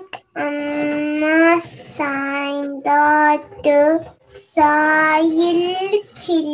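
A young boy singing a Tamil children's song alone, without accompaniment, in slow held phrases with short breaks for breath.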